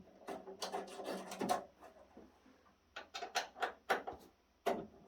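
Thumb screws being loosened on the metal cover of a lab instrument: scattered light clicks and knocks of handling in two short clusters, with a quieter gap in the middle.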